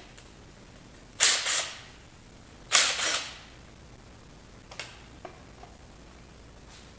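Two sharp metallic knocks about a second and a half apart, each with a short ring, as the timing cover is knocked loose from a Vortec 350 small-block V8, followed by a few faint clicks.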